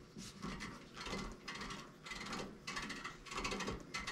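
Faint, irregular light clicking and rattling, about two or three clicks a second, from small metal parts and tools being handled at a workbench.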